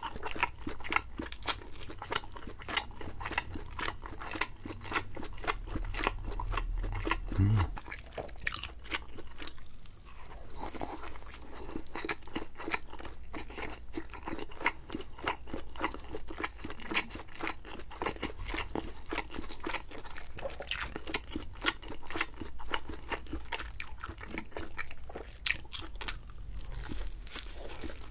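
Close-miked biting and chewing of thin-crust cheese pizza, a steady run of crisp crunches and wet chewing clicks, with one low thump about seven seconds in.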